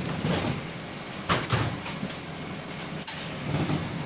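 Bus running with steady interior noise, broken by sharp bangs: a pair about one and a half seconds in and a loud single one about three seconds in. These are the weird shooting noise this bus makes.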